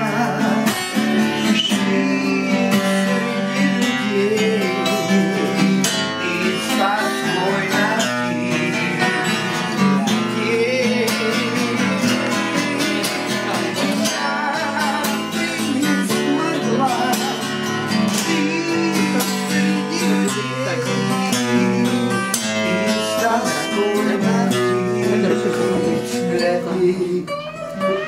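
Acoustic guitar strummed and picked in a Gypsy-romance song, with a man's singing voice over it.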